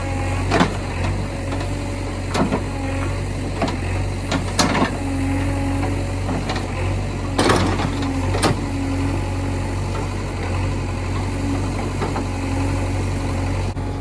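JCB 3DX backhoe loader's diesel engine running steadily under work, with a wavering mechanical whine over it. Sharp knocks and clanks come every few seconds, the loudest about seven and a half seconds in.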